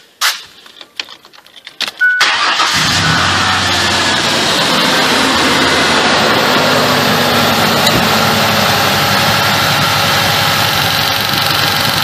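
A few clicks and knocks, then about two seconds in the Ford Ranger's 4.0-litre V6 starts and runs steadily. The number 4 spark plug wire is pulled off for a spark check, and the engine has a solid, really bad number 4 misfire.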